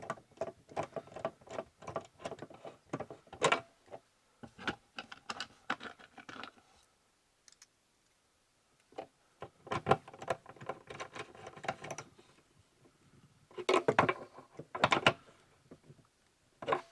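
A hand ratchet clicking in quick runs, with small metal clatter from the nuts and socket, as the nuts are run down on a fuel pump driver module. It goes quiet for a couple of seconds around the middle.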